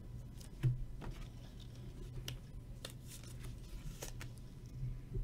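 Trading cards and plastic card holders being handled: scattered light clicks, taps and rustles, with a soft knock a little under a second in, over a steady low hum.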